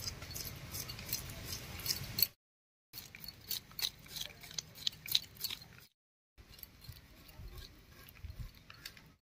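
Chitol fish (clown knifefish) being cut on a boti: the fish is pushed against the fixed curved blade, giving irregular crisp crunching and scraping through its scales and flesh, several crunches a second. Broken twice by a short silence.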